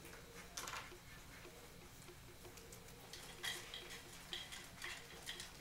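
Faint, even ticking, about three ticks a second, with a few short scratchy sounds, the clearest near the start and several more in the second half.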